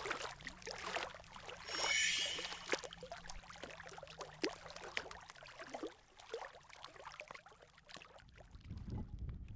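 Canoe paddle working the water: small splashes and drips, with a louder splash about two seconds in. A low rumble comes in near the end.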